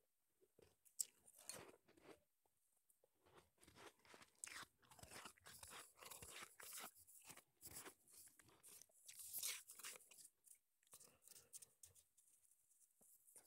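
Soft crunching and chewing of shaved ice, close to a wired earphone microphone held at the mouth: a quiet run of crisp crunches, busiest in the middle and thinning near the end.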